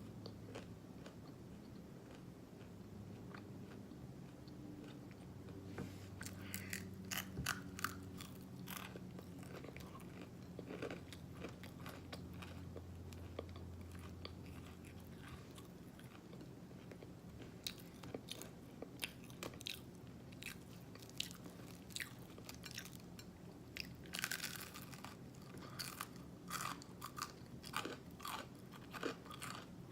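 Close-up mouth sounds of eating syrupy waffles: open-mouthed chewing with wet lip-smacking clicks, coming in bursts with quieter chewing between.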